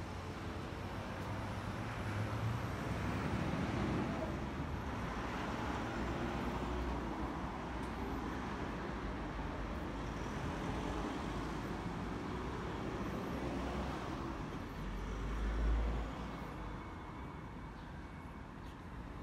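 Road traffic on a city street: vehicles driving past in a steady wash of tyre and engine noise that swells and fades, with a low rumble rising to a peak and falling away about three-quarters of the way through.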